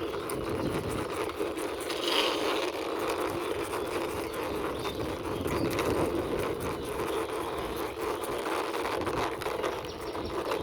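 Small plastic toy bike being pushed by hand across rough ground, its wheels and body scraping and crackling with many small clicks, over a steady low hum of background noise.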